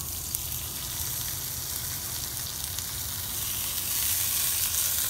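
Chopped onions, scallions and hot pepper sizzling in hot oil in an aluminium pot as they are sautéed. The sizzle starts suddenly as they go in and grows a little louder about four seconds in.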